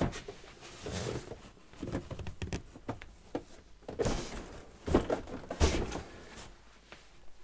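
A large, heavy cardboard box being heaved onto a wooden desk and shoved into place: a string of irregular thumps with cardboard scraping and rustling between them.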